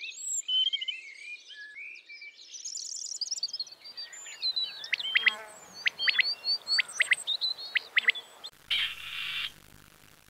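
Birds chirping and twittering in a quick, varied run of high whistled notes, with sharp clipped chirps in the middle. Near the end this gives way to a harsh, rasping bird call.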